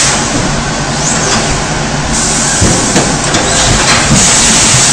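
Pneumatic shower curtain welding machine cycling: loud hisses of compressed air that start and stop abruptly, about every two seconds, as its air cylinders vent, over steady machine noise.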